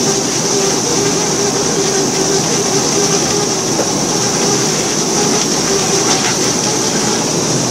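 Boat engine running steadily, with a constant high hiss over it.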